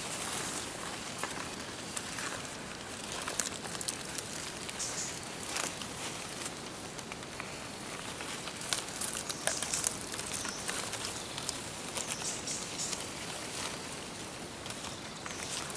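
Dry leaves and twigs rustling and crackling in forest undergrowth, with irregular sharp snaps and crunches.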